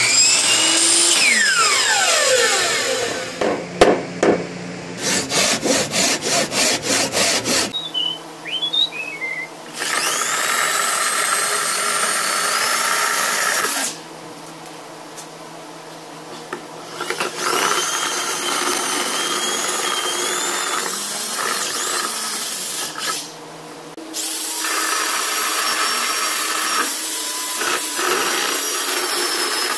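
A logo sound effect with falling sweeps and a fast pulsing, then a handheld electric power tool spinning a homemade corner-drilling bit into pine. It runs in three long bursts, each whining up to speed at the start, with quieter pauses between.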